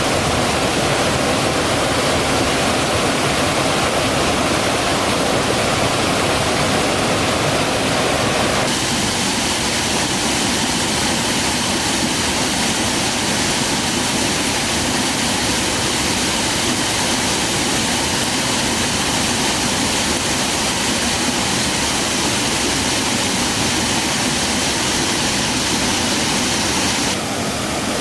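Steady rush of falling water from a mountain waterfall. The sound shifts abruptly about nine seconds in, turning brighter and losing some of its low rumble, and changes again near the end.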